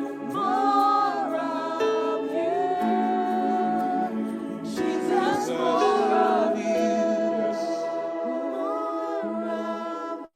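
Worship singers in a slow gospel-style song, voices gliding between long held notes over sustained chords. The sound drops out for an instant at the very end.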